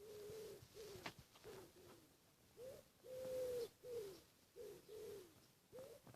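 Common woodpigeon singing: faint, low, soft coos in a rhythmic phrase, repeated, with one longer drawn-out coo in the middle.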